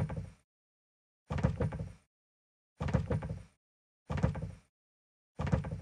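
Cartoon swinging door flapping back and forth on its hinges, one swishing, rattling swing about every second and a half with silence in between.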